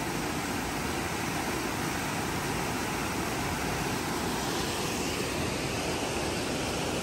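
Mountain stream running over rocks and a small cascade: a steady rush of water.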